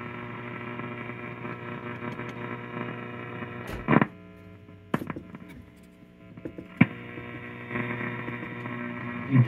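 A 1935 RCA Model 118 tube radio humming steadily from its speaker as it is brought up slowly on a variac after recapping, its first sign of life. A few sharp crackles and pops break in over the hum.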